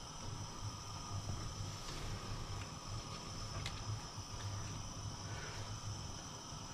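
Gas hob burner flame burning with a soft, fluttering low rumble, as jute rope is drawn through it to singe off the fuzz; a few faint ticks of rope against the glove and pan support.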